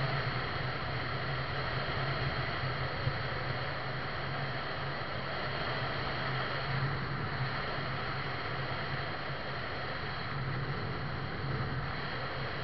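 Steady noise of a vehicle travelling at highway speed: wind and tyre noise with a low, even engine hum.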